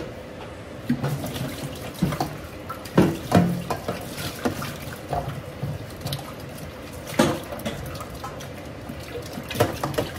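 Kitchen tap running water into a sink, with dishes or utensils clattering and knocking several times.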